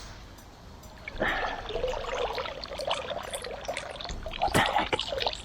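Water splashing and trickling as a fishing magnet is swished and rinsed in canal water, starting about a second in, with many small sloshes and drips.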